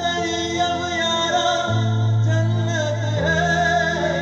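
Live singing with musical accompaniment played through PA loudspeakers: a voice carries a melody over a bass line that holds long notes, changing pitch twice.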